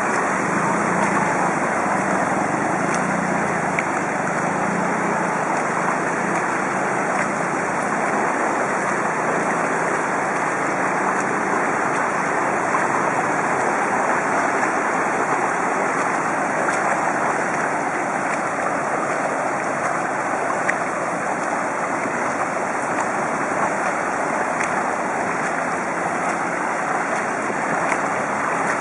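Steady rushing noise of wind buffeting the bicycle-mounted camera's microphone, mixed with the wash of the bicycle's tyres running through floodwater.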